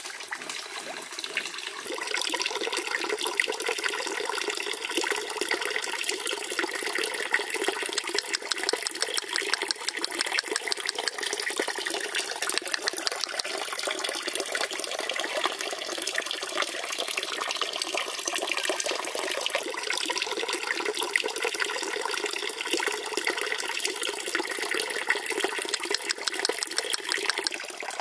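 Small fountain: a thin stream of water from a clay statue splashing steadily into a fish pond. It gets a little louder about two seconds in, then runs on evenly.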